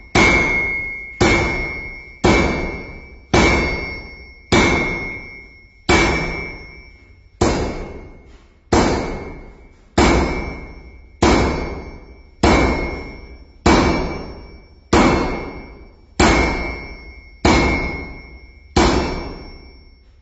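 Sledgehammer striking a steel anvil about once a second, sixteen or so blows in a steady rhythm, each a sharp clang that rings on with a bright high tone and fades before the next.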